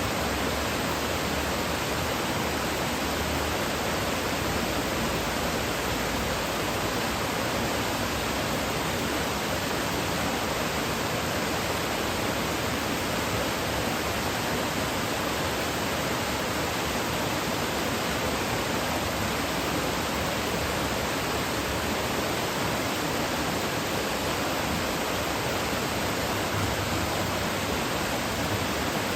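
Water pouring over the Kuzuryu Falls, a steady, even rushing that does not change.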